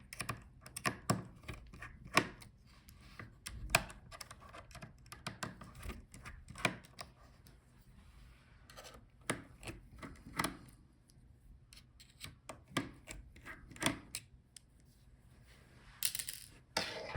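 Irregular light clicks and taps of a screwdriver working the small hinge-cover screws out of a Lenovo Legion 5 laptop, with the tiny screws set down, and a short scraping rustle near the end.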